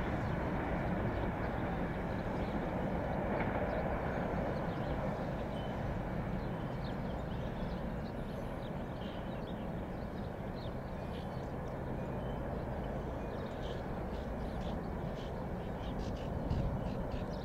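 Union Pacific freight train rolling by: a steady low rumble that eases off slowly, with light clicking in the second half.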